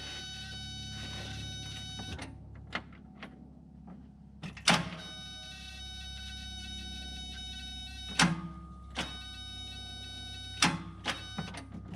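A backhoe being keyed to start that will not crank: several sharp clunks from the starter, with a steady high tone sounding between them. The starter only goes "kuh", as if stuck, a fault the owner puts down to the starter, the battery or corroded ground connections.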